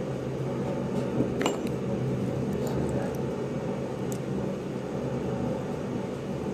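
Steady low machine hum with a few light metallic clinks, about a second and a half in and again near four seconds.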